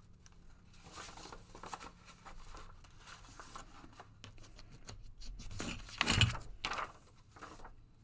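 Sheets of paper being handled, shuffled and laid together, a run of short rustles with a louder rustle about six seconds in.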